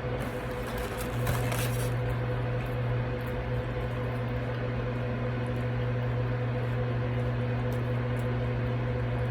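Steady low electrical hum, with a few brief crackles between about half a second and two seconds in.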